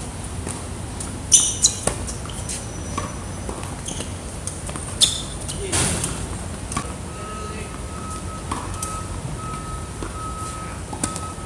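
Tennis ball being struck with rackets in a rally: a few sharp pops, the loudest about a second in and another around five seconds in, over a steady low background hum.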